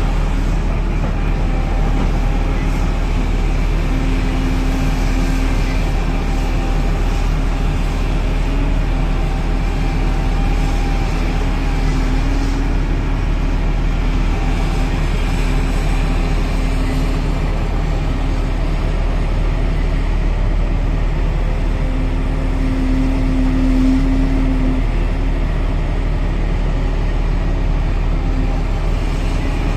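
Volvo EC950E crawler excavator's diesel engine and hydraulics working steadily as it digs and swings its loaded bucket. A constant drone with a tone that swells now and then, loudest a little over twenty seconds in.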